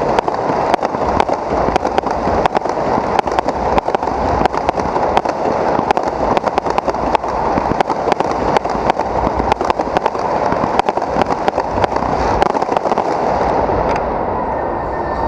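Fireworks bursting overhead in a rapid, continuous barrage of pops and bangs, thinning out near the end.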